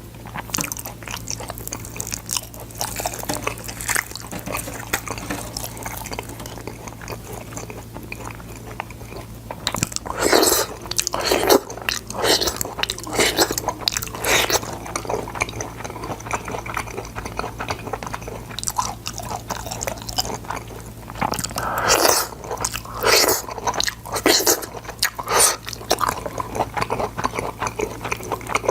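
Close-miked chewing and biting of boiled sword beans: moist crunches and mouth clicks, louder in two spells, one about a third of the way in and one near the end. A steady low hum sits underneath.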